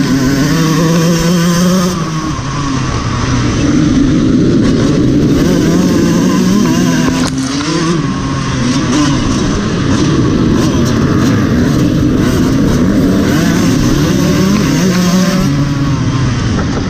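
Dirt bike engine running hard, with other off-road motorcycles in a pack around it. The revs keep rising and dropping, with a marked drop at about two seconds and again at about eight seconds.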